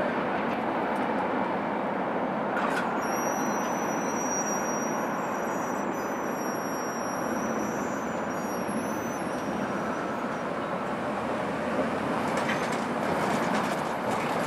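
Steady running noise of a train moving away down the line, with a thin high squeal for several seconds in the middle. Near the end, road traffic noise rises as a pickup truck drives over the level crossing.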